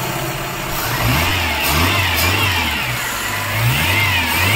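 Tata Indica petrol engine running and revved up and down in several quick blips, the throttle worked by hand at the throttle body. The engine now starts and runs after the swapped relays were corrected and a burnt diode replaced.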